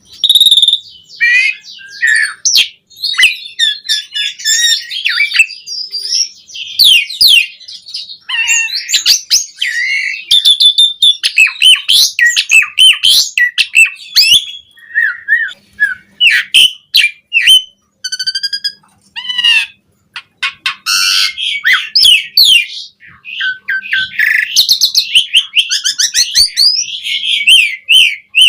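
Pied starling (jalak suren) singing a long, varied song: chirps, slurred whistles, harsh notes and rapid trilled runs, with short pauses between phrases. The song is full of borrowed phrases (isian) that mimic other birds.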